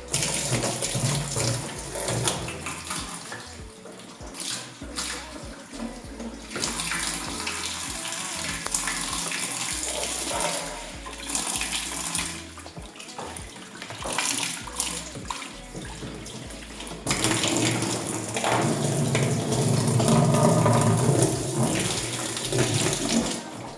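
Water splashing and pouring in the tub of a semi-automatic washing machine as it is rinsed out with clean water, uneven in strength and loudest over the last several seconds.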